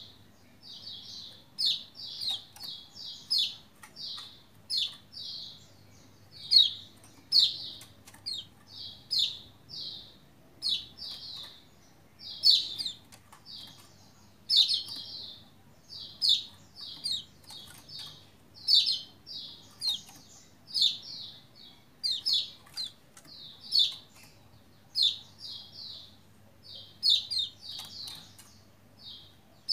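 Lombok white-eye (pleci lombok, kecial kuning) in full song ('gacor'): short, high chirps in quick runs of several notes, with no break.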